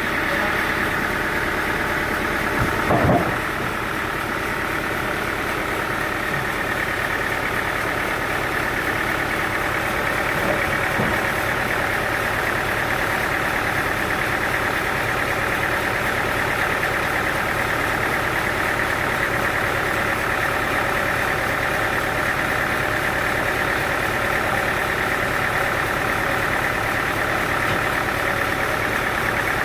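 Sawmill machinery running steadily, with one short knock about three seconds in.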